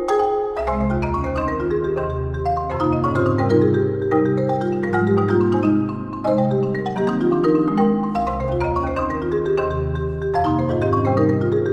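Two marimbas played as a duet with mallets: a fast, continuous stream of overlapping struck notes. Deep bass notes join about half a second in under the higher pattern.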